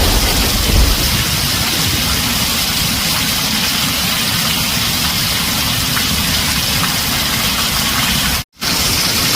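Heavy rain drumming steadily on a tin roof, with a low thunder rumble fading out in the first second. Near the end the sound cuts out completely for a split second, then the rain resumes.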